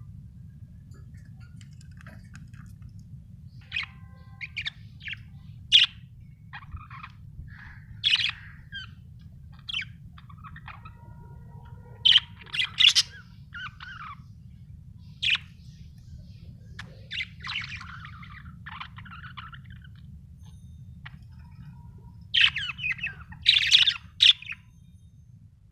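Budgerigar chirping in scattered short calls and squawks, with louder flurries about twelve seconds in and again near the end, over a steady low hum.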